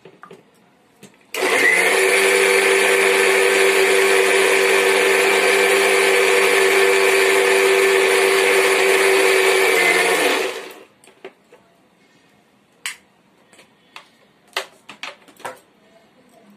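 Electric mixer grinder running for about nine seconds with a steady, even hum, grinding coconut chutney with water to a fine paste, then switched off. A few light clicks and knocks follow.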